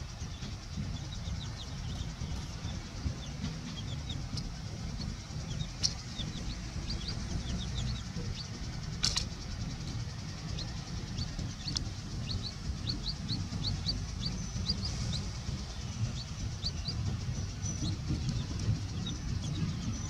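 Baby chicks peeping in short, high, falling chirps, scattered throughout and more frequent in the second half, over a low steady rumble. Two brief sharp clicks stand out, about six and nine seconds in.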